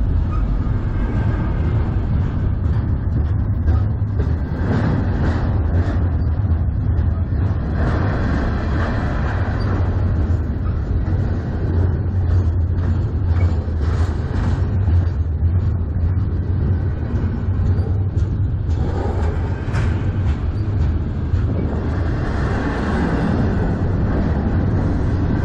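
Double-stack intermodal freight cars rolling past on the rails: a steady low rumble of steel wheels on track, broken by many short clicks and clanks.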